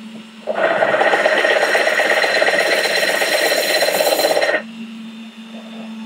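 Benchtop drill press running, its bit grinding through the wet glass wall of a jar: a loud, harsh grinding from about half a second in that stops abruptly about four and a half seconds in, leaving only the steady hum of the motor as the bit breaks through.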